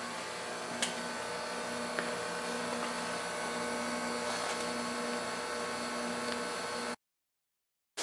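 Steady hum of a running appliance motor in a small room, with two faint clicks in the first couple of seconds. The sound cuts off abruptly about a second before the end.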